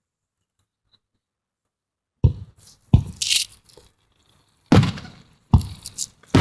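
Fireworks bursting overhead: about five sharp booms starting about two seconds in, some trailing into crackling.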